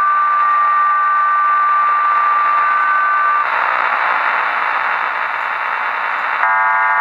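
HM01 numbers station's digital signal over a shortwave radio. A few steady tones sound for about three and a half seconds, then give way to a band of hiss. Near the end a comb of many steady parallel tones starts: the station's multi-tone digital data.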